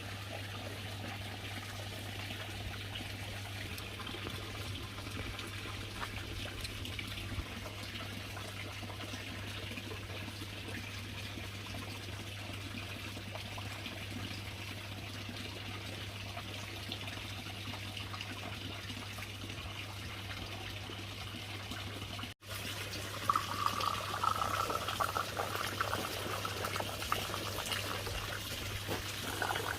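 Steady trickling of running water with a constant low hum under it; after a sudden break about two-thirds through it comes back louder and more uneven, with a brief higher tone.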